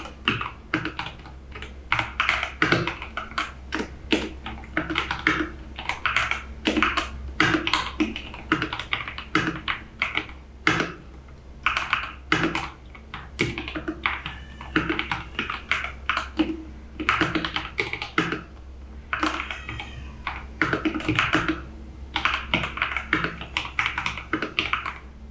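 Typing on an Epomaker TH80 mechanical keyboard: a continuous, irregular run of keystroke clicks and clacks, several a second, with short pauses between bursts.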